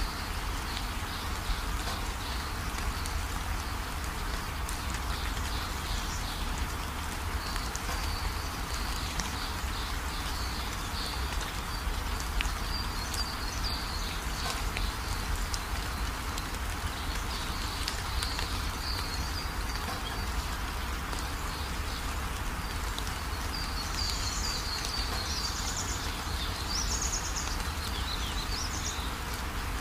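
Small birds chirping over and over, getting busier near the end with quick rising and falling notes, above a steady hiss and a low rumble.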